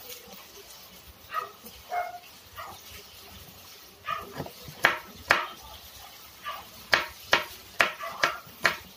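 Kitchen knife chopping bell pepper on a cutting board: a run of about seven sharp, uneven knocks against the board, starting about five seconds in.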